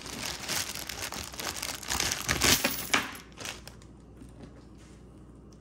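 Packaging crinkling and rustling as it is handled and opened, dense for about three and a half seconds and loudest just before the middle, then dying down.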